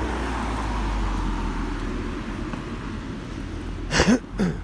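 Distant diesel engine idling with a steady low rumble, misfiring. Two short, sharp pitched calls sound close together near the end.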